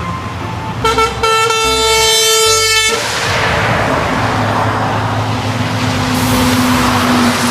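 Vehicle air horn sounding a short tune of steady notes that step in pitch for about two seconds. A long loud rushing noise follows, with a low steady hum joining it near the end.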